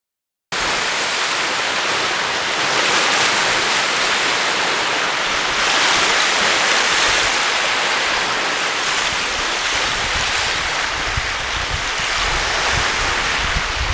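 Small waves of slushy, icy lake water washing onto a snowy shore: a steady hiss and wash of water that starts about half a second in. Wind buffets the microphone with low rumbles, more in the second half.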